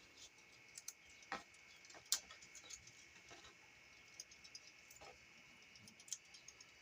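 Near silence with faint, irregular clicks and light knocks from hands working thread around a split bamboo shaft while binding in the fishing spear's tines, over a faint steady high hum.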